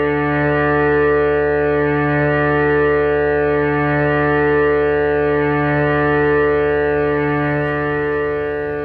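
Live drone music: one held, distorted chord from electric guitar through effects pedals and a keyboard, swelling slowly. It starts to fade near the end.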